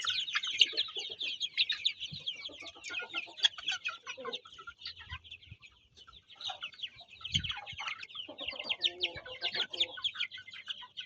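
A flock of mixed-breed domestic chickens calling, a dense run of many overlapping short, high-pitched calls with a brief lull about halfway through and some lower clucks near the end.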